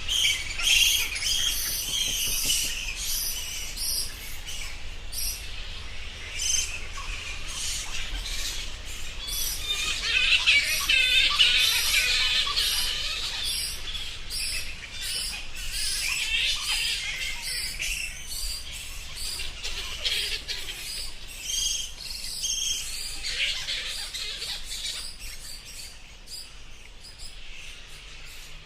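Bats squeaking and chittering: a dense, overlapping stream of short high-pitched chirps and clicks with wavering squeaks, growing fainter near the end.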